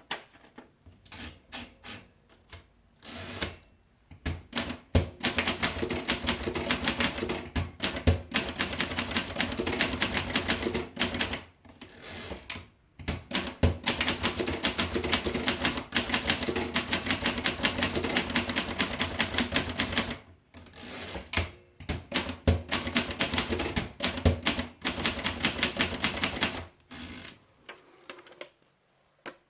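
Everest Model 90 manual typewriter being typed on: fast runs of key strikes clacking several to the second, broken by a few short pauses, tapering off near the end.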